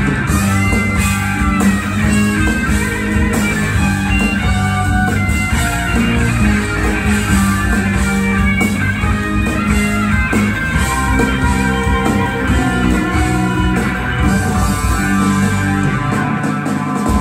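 Live rock band playing an instrumental passage, with electric guitar, bass guitar and keyboards over a sustained low bass note.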